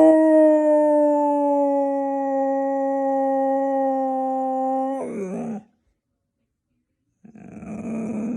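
Dog howling: one long, steady howl of about five seconds that wavers and breaks off, then a second, rougher and lower howl starting near the end.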